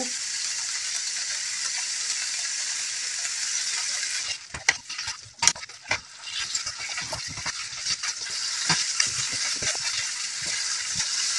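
Pork strips and black fungus sizzling steadily in chilli bean sauce and rice wine in a non-stick wok on high heat. About four seconds in, the sizzle dips briefly under a few sharp knocks. It then resumes with a wooden spatula scraping and tapping the wok as the food is stir-fried.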